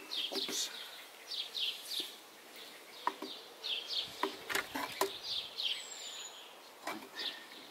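A metal hive tool prising wooden hive frames apart, making a series of sharp wooden clicks and knocks as the frames are levered loose. Small birds chirp throughout.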